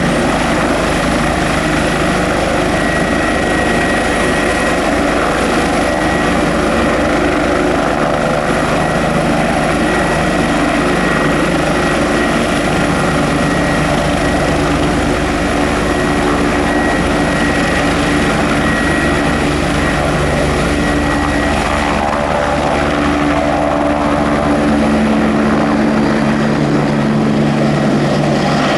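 Eurocopter UH-72A Lakota helicopter in a low hover, its main rotor beating steadily under the high whine of its twin turboshaft engines. It gets slightly louder near the end as the helicopter turns side-on.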